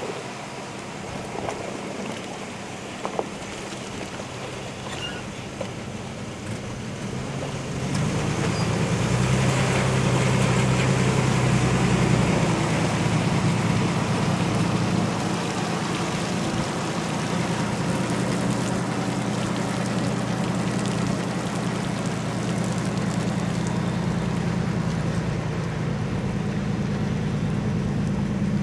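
A vehicle engine running steadily under wind noise, getting clearly louder about eight seconds in.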